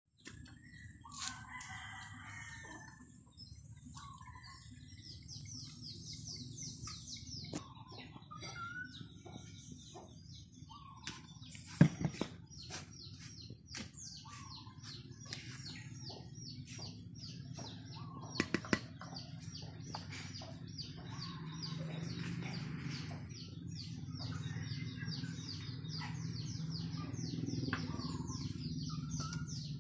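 Birds chirping: rapid, repeated high chirps throughout, with other bird calls now and then, over a steady high whine and a low hum. Two sharp knocks stand out, one a little before halfway and one about two-thirds through.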